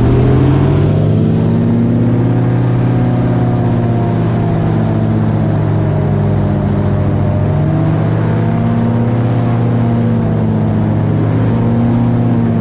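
Airboat's big-block engine and propeller running hard under way, a steady drone whose pitch rises and falls slightly as the throttle shifts.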